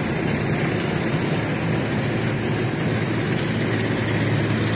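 Engine of road-paving machinery running steadily with a constant low hum.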